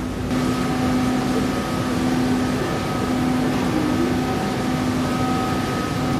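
River cruise ship's engines and machinery running with a steady hum and hiss, stepping up a little in loudness just after the start.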